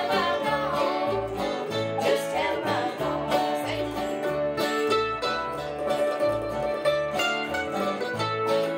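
Acoustic bluegrass band of banjo, acoustic guitars, upright bass, fiddle and mandolin playing, with a woman and a girl singing in the first few seconds before it carries on as instrumental picking over a steady upright-bass beat of about two notes a second.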